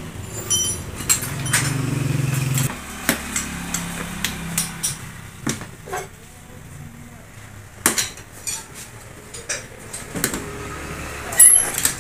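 Steel tyre levers clinking and knocking against a spoked motorcycle wheel rim as a tyre is worked on, a string of sharp metallic taps at uneven intervals. A steady low hum runs under the first few seconds and then stops.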